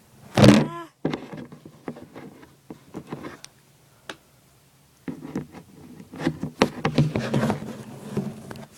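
Small plastic toy figurines handled and tapped on a hard surface: scattered clicks and knocks, thicker and mixed with rustling in the second half. A short, loud pitched squeak comes about half a second in.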